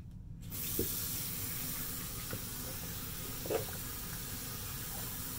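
A tap is turned on about half a second in and runs steadily into a sink, with a few faint knocks.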